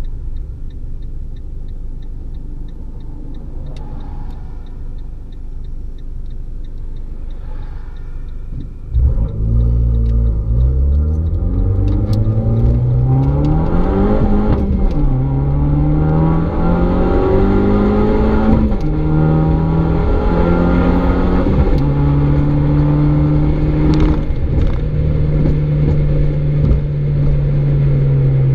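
Fiat 500 Abarth's turbocharged 1.4-litre four-cylinder and sport exhaust, heard from inside the cabin. A low cruising rumble is followed, about nine seconds in, by the throttle opening and the sound getting much louder. The engine note climbs through the gears with three upshifts, then holds a steady tone at cruising speed.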